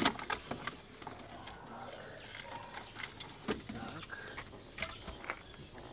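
Scattered clicks and knocks of a car's plastic dashboard trim being worked loose and pulled out by hand.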